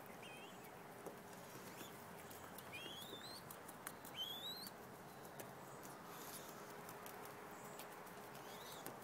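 Faint, thin rising peeps from mourning dove squabs begging while being bottle-fed: a short one at the start, then two clearer upslurred ones about a second and a half apart near the middle, with a few soft clicks.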